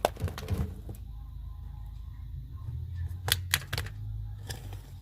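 A few sharp clicks and light taps of handling, about a second in and again in a quick cluster between three and four seconds in, over a low steady hum.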